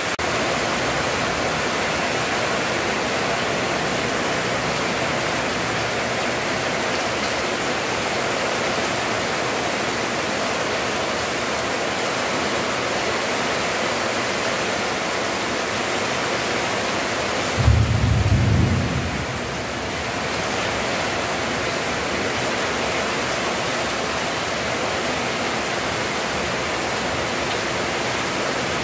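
Heavy rain pouring steadily onto the ground, puddles and roofs, a dense, even hiss. About eighteen seconds in, a brief low rumble lasts a couple of seconds.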